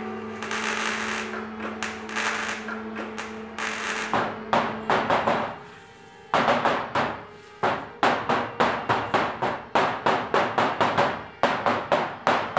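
MIG welder crackling steadily over its buzzing hum for the first few seconds. After a short lull, charcoal rasps across paper in a quick run of sharp strokes, about two or three a second.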